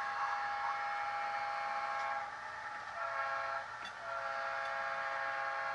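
Multi-chime diesel horn of a sound-equipped HO scale model of a Rio Grande PA passenger locomotive, blowing a chord of several notes: a long blast, a short one about three seconds in, then another long blast.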